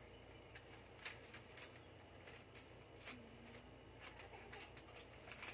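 Faint, scattered rustles and crinkles of a paper leaflet being handled and turned over, in near silence.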